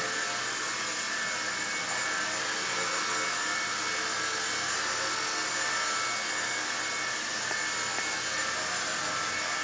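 Helimax Novus CP micro collective-pitch RC helicopter in flight: the steady whine of its electric motor and the whir of its spinning rotor blades.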